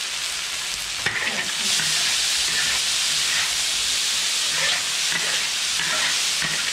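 Chopped cabbage and pork stir-frying in a large wok: a steady sizzle that grows louder about a second in, with a metal spatula scraping and tossing the food against the pan again and again.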